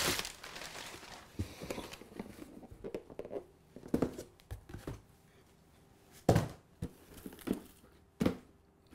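Packing paper rustling and crinkling as a cardboard box is handled and lifted out of a shipping carton, then a few knocks of cardboard boxes set down and pushed on a stone countertop. The loudest knock comes about six seconds in, with another just after eight seconds.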